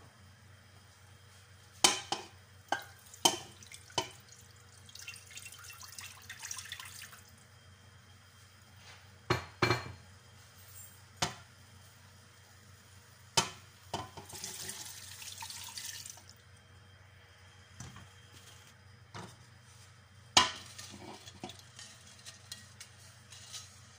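Kitchen cookware and utensil clatter: a series of sharp knocks and clinks, several in quick succession near the start and more scattered later, with two brief hissing spells in between.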